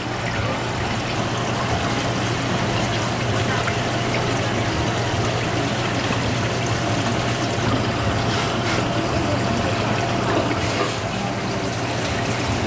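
Steady running water over a low, constant hum.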